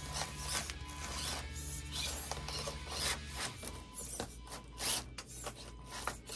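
Mini RC rock crawler (Axial SCX24 Deadbolt) climbing through a hardened spray-foam course, its tyres scrubbing and scraping on the foam and sticking on the plastic wrap lining the tunnel, over the whir of its small motor and gears. The low hum drops away about halfway through.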